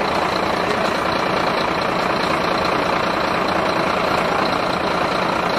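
An engine idling steadily, a constant even rumble and hiss with no change in speed.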